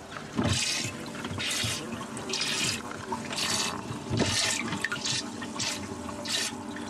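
Water splashing and gurgling in a fishing boat's livewell, in repeated gushes about once a second over a steady low hum.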